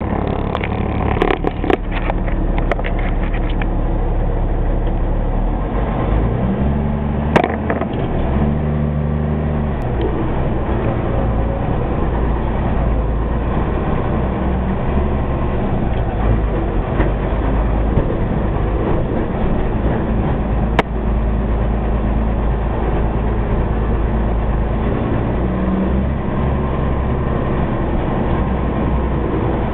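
M35A1 2½-ton 6x6 army truck's multifuel diesel engine running steadily under load while driving on a rough dirt track, heard from inside the cab. The engine note steps up and back down about seven to nine seconds in. Sharp knocks and rattles come through now and then, several in the first few seconds.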